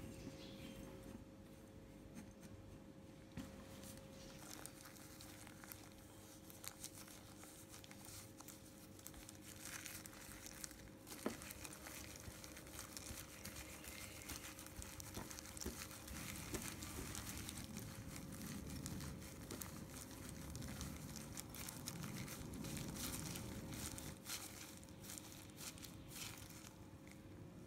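Faint crinkling and rustling of a disposable plastic glove as a hand squeezes and kneads crumbly ground-peanut filling in a glass bowl, with a spatula scraping through the mixture at first. A faint steady hum runs underneath.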